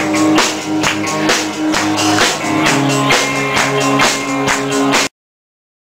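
Live rock band playing, with electric guitar, bass and drum kit keeping a steady beat. The sound cuts off suddenly about five seconds in.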